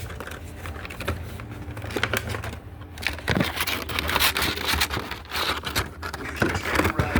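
Action figure packaging being opened by hand: plastic and cardboard crinkling, tearing and scraping with scattered clicks, busier from about three seconds in.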